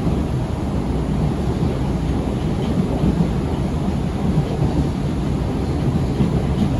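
Osaka Metro 30000 series subway train running, heard from inside the car as a steady, deep rumble of wheels and running gear.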